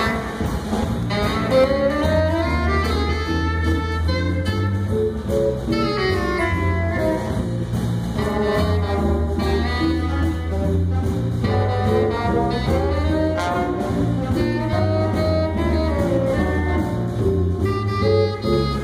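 A student jazz big band playing: saxophones and brass carry the melody over steady bass notes.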